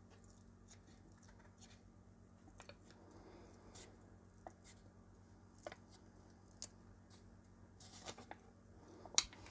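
Faint crackles and ticks of a 3M adhesive backing liner being peeled off the back of a replacement ZX81 membrane keyboard, with a sharper click near the end.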